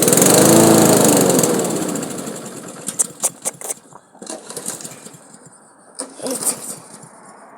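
Walk-behind lawn mower engine catching briefly after a start attempt, its pitch rising then falling as it runs down and dies out over a couple of seconds, followed by a few scattered knocks. It won't keep running, which the owners put down to water in the gas.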